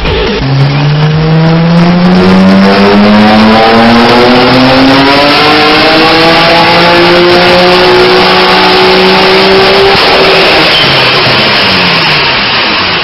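Nissan R32 GT-R's twin-turbo RB26 straight-six at full throttle in a dyno pull, rising steadily through the revs for about nine seconds, then letting off near the end.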